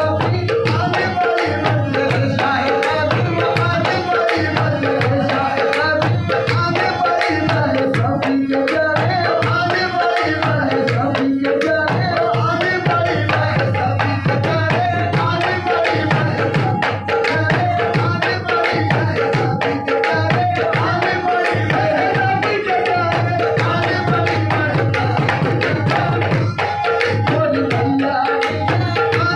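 Live qawwali: tabla drumming in a steady rhythm under sung vocals, with held notes sounding beneath.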